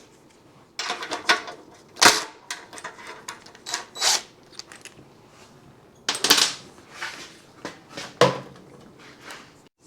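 Metal tools and motorcycle parts clanking, knocking and rattling as they are handled during a teardown, in two spells of irregular knocks with a pause between them.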